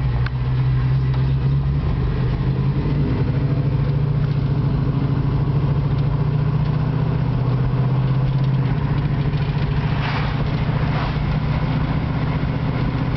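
1970 Ford Mustang Mach 1's 351 V8 engine running steadily while the car is driven along a road, heard from inside the cabin.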